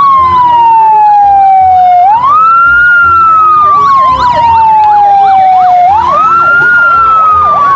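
Fire-engine siren: a slow wail that falls over a few seconds and then sweeps quickly back up, twice, with a faster up-and-down siren layered over it from about two seconds in.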